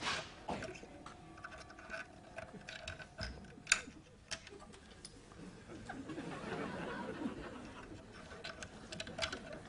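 Faint background sound with scattered small clicks and knocks, one sharper click just under four seconds in, and a faint murmur around the middle to the end.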